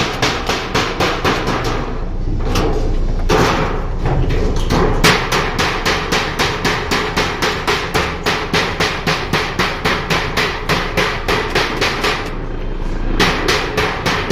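Hammer blows in a fast, even rhythm of about three a second, stopping briefly about two seconds in and again near the end, over a steady low hum.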